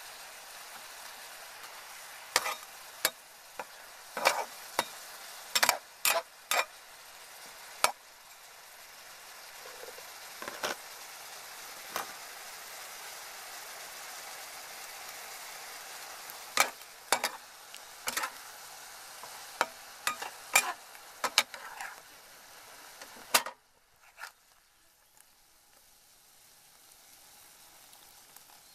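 Shrimp and green onion stalks sizzling in a frying pan, with a metal spatula clacking sharply against the pan now and then as they are stirred. Near the end the sizzle drops off suddenly to a faint hiss.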